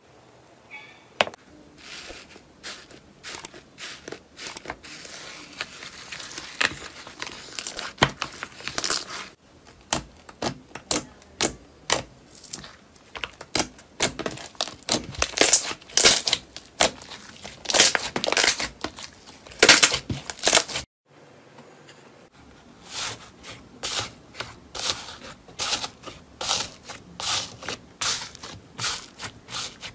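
Slime being handled close to the microphone, giving a run of irregular crackles and pops. The sound breaks off for a moment about 21 seconds in, then starts again.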